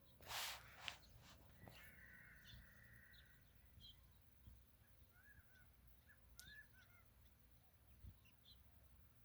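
Faint wild birds calling over a quiet background. A short harsh call comes about half a second in, then a drawn-out note, then scattered short chirps.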